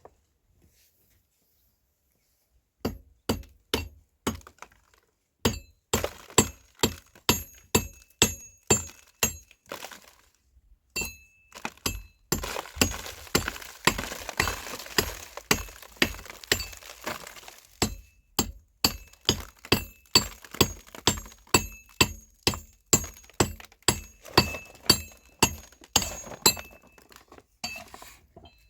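Repeated sharp clinking strikes on something hard that rings after each blow, about two a second. In the middle they run together with a rougher, scraping noise for several seconds.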